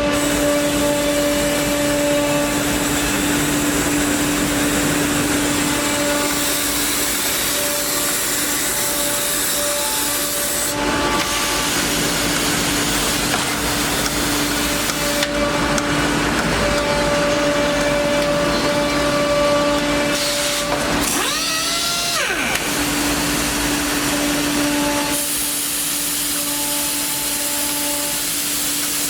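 HOMAG five-axis CNC woodworking machining centre running: a steady machine whine with a constant hiss that changes as it works, and a brief swoop in pitch about two thirds of the way through.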